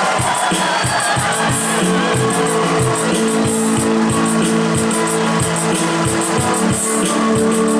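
Loud music with a steady drum beat and sustained guitar chords.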